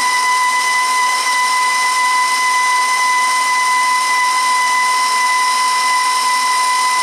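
Electric stand mixer running at a steady speed with a high, even motor whine while creaming butter and oil with eggs.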